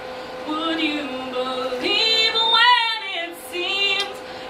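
A woman singing solo in short phrases that bend in pitch, with vibrato about the middle, over a steady held tone.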